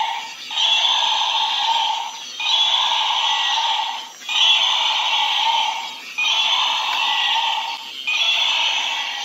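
Battery-operated walking triceratops toy playing its electronic dinosaur sound through a small tinny speaker. The call lasts about a second and a half, with a short break before each repeat, so it comes round about every two seconds.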